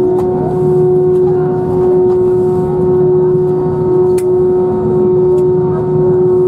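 Airbus A321-231's IAE V2500 engines at taxi idle, heard inside the cabin: a steady drone with one strong constant tone over a haze of cabin noise.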